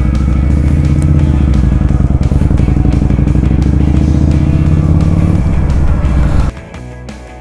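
Motorcycle engine running steadily under way, with music playing alongside. The engine sound cuts off abruptly about six and a half seconds in, leaving the quieter music.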